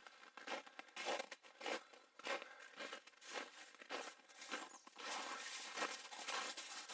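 Footsteps crunching in snow on a trail at a walking pace, about two steps a second.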